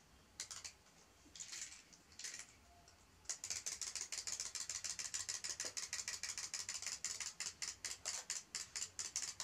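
Mechanical wind-up toy chick running, its clockwork giving a rapid, even run of sharp plastic clicks, about ten a second, starting about three seconds in. Before that, a few short rustles.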